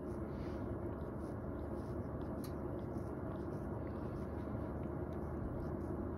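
A steady low rumble, with faint soft ticks of a cat licking its fur scattered through it.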